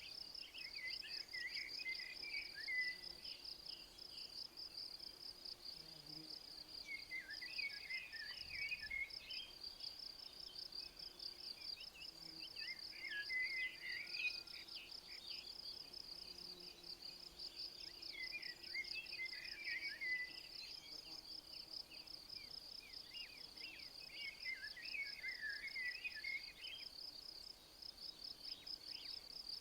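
Insects chirping in a steady, fast pulsing trill, with a bird singing a short phrase about every five to six seconds over it.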